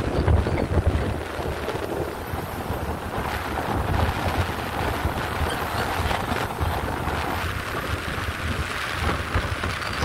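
A truck on the move: engine and road noise with wind buffeting the microphone.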